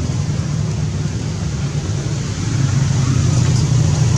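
A motor vehicle engine running, a steady low rumble.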